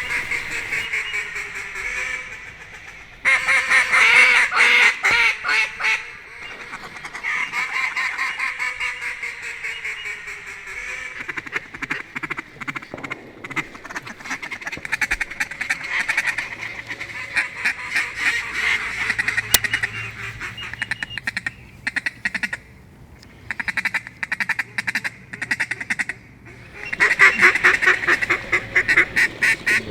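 Mallard quacking and fast chattering, coming in bursts of several seconds with short gaps.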